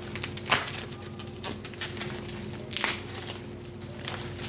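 Bubble wrap crinkling and crackling as it is handled and pulled off, with two louder crackles, about half a second in and near three seconds, over a faint steady hum.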